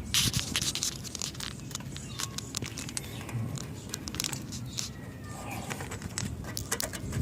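Close handling noise: irregular small clicks, scrapes and rustling as fingers work the plastic wiring connector and its safety clip on an airbag sensor, densest in the first second.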